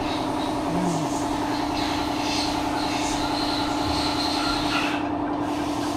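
Nissan Patrol's replacement engine running steadily at an even, unchanging speed.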